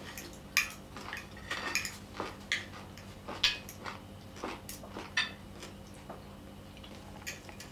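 Knives and forks clinking and scraping on dinner plates: scattered light taps, a dozen or so, over a low steady hum.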